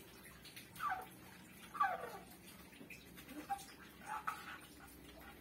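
A pet animal giving several short whining calls that fall in pitch, the two loudest about one and two seconds in and weaker ones later.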